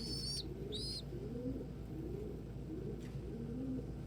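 Domestic pigeons cooing, a steady run of overlapping low rising-and-falling coos. In the first second a young pigeon gives two short, high squeaky peeps.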